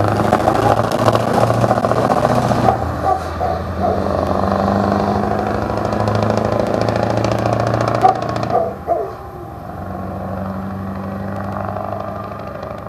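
Scania V8 truck engine running loud and steady as the truck passes. About eight and a half seconds in it drops away to a quieter steady drone, which fades out at the end.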